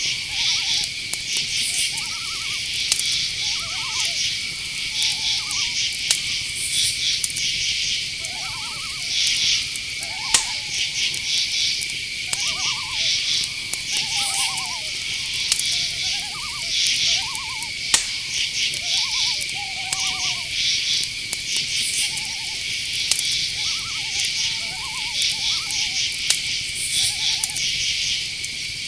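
Night insects: crickets trilling steadily, with pulsed chirping from other insects above it. Over this, short quick-pulsed calls of a small owl repeat every second or two.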